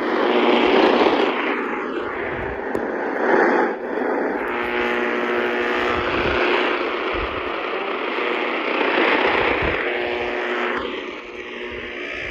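Radio static hissing from a small receiver's speaker, with faint steady tones under the hiss through the middle part.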